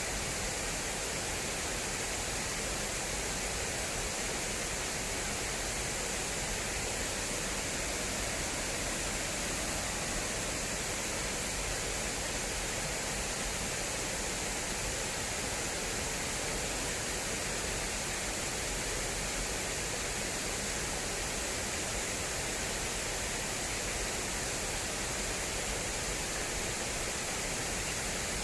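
Water rushing steadily down an irrigation channel, a constant even rush with no breaks.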